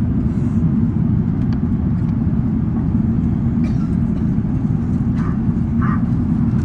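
Steady low cabin roar of an Airbus A380-861's Engine Alliance GP7200 turbofans and airflow, heard from inside the passenger cabin, with a few faint ticks of cabin rattle.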